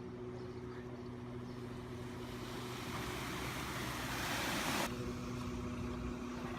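Vehicle engine humming steadily in floodwater, with a rush of water spray that builds over a couple of seconds and cuts off suddenly about five seconds in.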